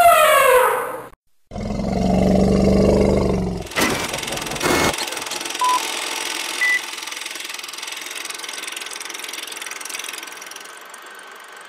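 An elephant's trumpet call, falling in pitch, fades out about a second in. After a short break a deep, low roar sounds for about two seconds. Then come two sharp clicks and a steady hiss, with two short beeps a second apart.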